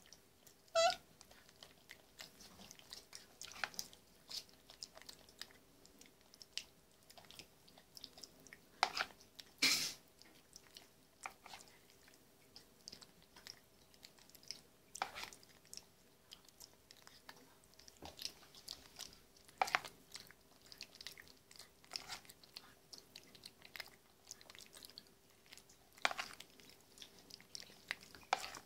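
Crab-eating macaque eating soft puree from a plastic spoon: irregular smacking and chewing sounds with scattered sharp clicks, a few of them louder, over a faint steady hum.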